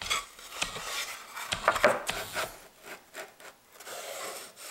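A plywood panel handled and pushed into place against a plywood box: irregular wooden knocks and scraping rubs.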